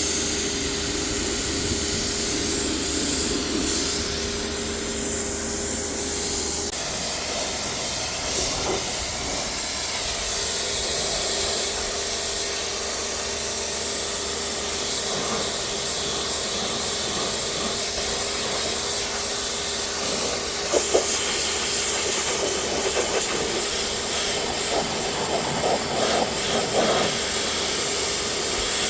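Pressure washer spraying water off degreased carpet with a steady hiss over its pump's hum. The hum drops out about six seconds in and picks up again around ten seconds, with a few short knocks near the end.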